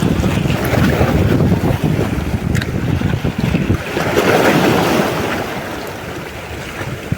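Wind buffeting the microphone over the wash of sea waves, with a louder surge about four seconds in that eases off after five seconds.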